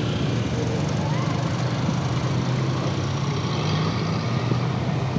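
An engine running steadily at an even speed, a low hum that holds without change.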